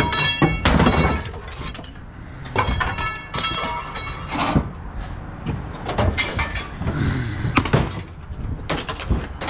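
Scrap metal being handled and dropped: repeated irregular clanks and knocks, some ringing briefly.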